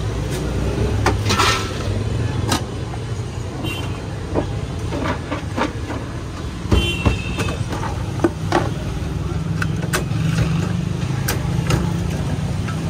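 An engine running steadily with a low hum, and scattered sharp clicks and knocks over it.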